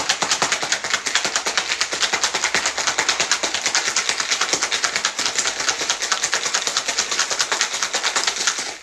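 Ice rattling and clacking inside a stainless steel cocktail shaker shaken hard by hand, in a fast, even rhythm: a drink being shaken with ice to chill it.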